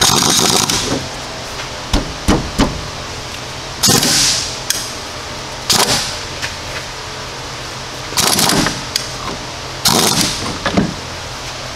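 Steel C-frame ball joint press being worked onto a lower ball joint: a string of irregular metal knocks, clanks and short scraping bursts, with three quick sharp knocks around two seconds in.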